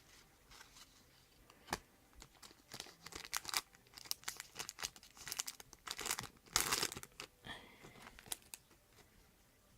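Shiny foil trading-card packet wrapper crinkling and tearing as it is opened, a run of irregular crackles with the loudest stretch about six and a half seconds in.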